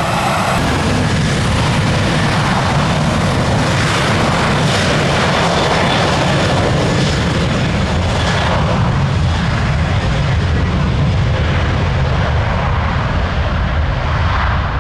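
Boeing 737 jet airliner's engines at takeoff thrust during the takeoff roll: a loud, steady roar with a deep rumble, swelling just after the start and then holding.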